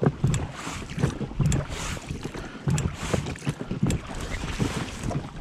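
Oars of an inflatable rowing boat pulled in repeated strokes, with sharp knocks from the oars, and wind on the microphone.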